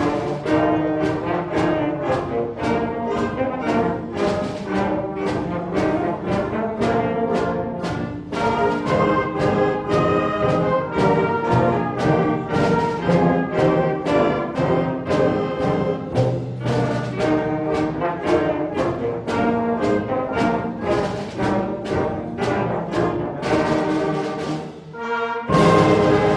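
Middle school concert band playing, brass to the fore, over a steady percussion beat. Near the end the music drops briefly, then the full band comes back in loudly.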